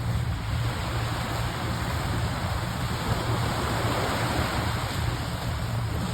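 Steady wind rumbling on the microphone over the wash of water at the river-mouth shore, with no distinct events.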